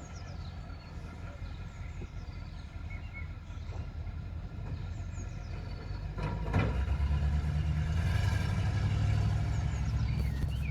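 ZIL truck engine running with a steady low rumble that grows louder about two-thirds of the way in, with a short knock near then. Birds chirp over it.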